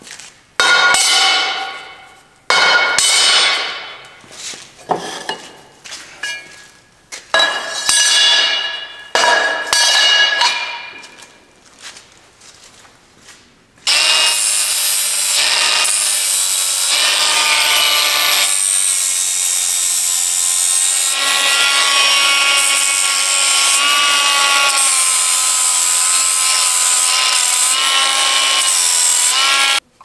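Steel bar and tubing clanking against a steel welding table, each knock ringing on and fading. About fourteen seconds in, a handheld angle grinder starts grinding the end of a rectangular steel tube and runs steadily with a ringing whine.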